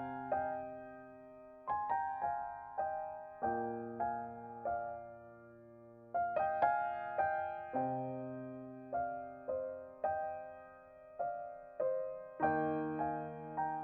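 Background music: a slow, gentle solo piano piece, single notes struck and left to ring over held low bass notes.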